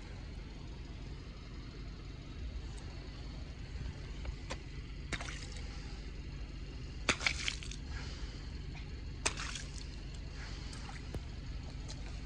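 Water-filled balloons being handled and set down on wet asphalt: a few short wet taps and sloshes, the loudest a quick cluster about seven seconds in, over a steady low rumble.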